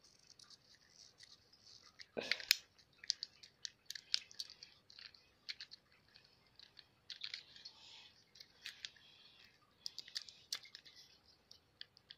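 Faint, scattered clicks and rubbing of a plastic fidget cube being fiddled with in the hands, with one louder knock about two seconds in.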